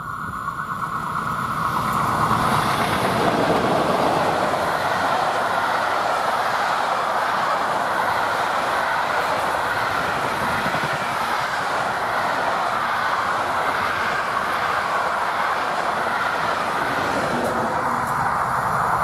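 Locomotive-hauled train of older passenger coaches passing close by: the rush and rumble of wheels on the rails swell over the first couple of seconds as it arrives, then hold steady while the coaches go past.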